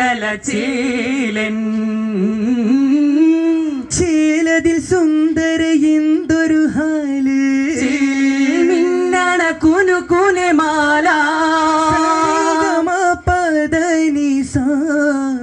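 Men singing a vattappattu, the Mappila wedding song of Kerala: a slow, ornamented melody with long held notes.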